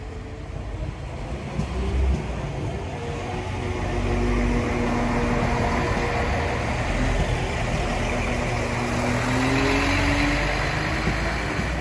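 Transport for Wales Class 197 diesel multiple unit running close past, its engine drone and rumble growing louder over the first few seconds and then holding steady, with engine tones that slowly shift in pitch.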